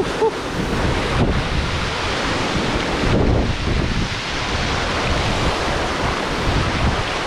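Wind buffeting the microphone over a steady rushing noise, with gusty low rumbles.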